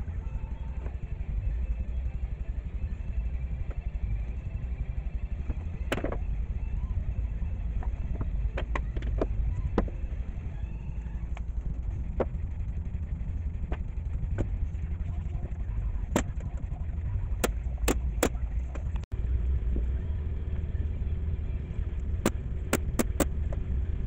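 A steady low rumble throughout, with scattered sharp knocks and clicks of particleboard panels being handled and set against each other on a wooden workbench, including a quick run of four clicks near the end.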